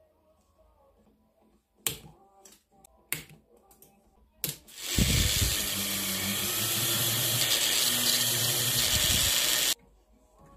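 A few sharp clicks, then a jeweller's rotary tool spinning a polishing wheel against a gemstone ring for about five seconds: a loud, steady hiss over a low motor hum that cuts off suddenly. This is the final high-gloss polish of the ring.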